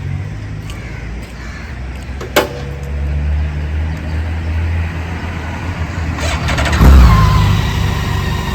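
BMW K1600's inline-six engine running as the motorcycle rides at low revs, then opening up sharply about seven seconds in, the loudest moment, with the pitch sliding after it. A single sharp click about two and a half seconds in.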